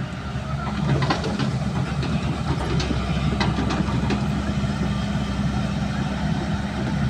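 Diesel engine of a Hyundai crawler excavator running steadily while the boom and bucket swing, with a few short knocks.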